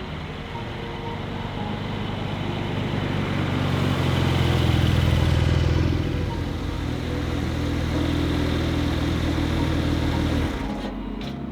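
Porsche 911 Turbo (992) twin-turbo flat-six engine running at a steady note as the car passes, swelling to its loudest about halfway through with a rush of tyre and wind noise, then falling away near the end.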